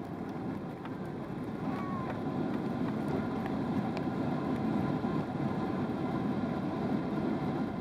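Cabin noise inside a Boeing 777-300ER during landing: a steady rumble of its GE90 engines and rushing air, growing louder about two seconds in.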